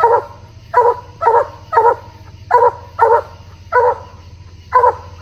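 Coonhound barking treed at the foot of a tree, about nine loud barks at a little under two a second with a short pause near the end. This is the tree bark that tells the hunters the hound has run its quarry up a tree.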